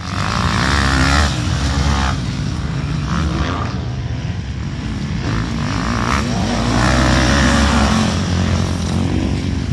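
Motocross dirt bike engines revving on the track, the pitch rising and falling as the riders work the throttle. They are loudest in the first second and again around seven seconds in.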